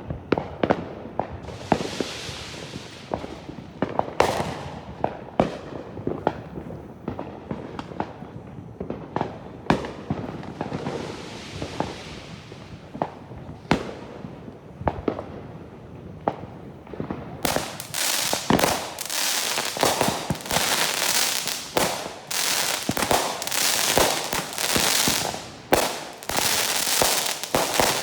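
Fireworks and firecrackers going off, with sharp bangs scattered throughout. About two-thirds in, a dense run of rapid crackling pops starts and keeps going.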